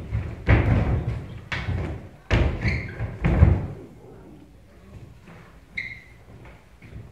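A series of heavy thumps of feet landing and stomping on a stage floor as children jump-kick and drop to kneel during a martial-arts routine, most of them in the first few seconds, then quieter.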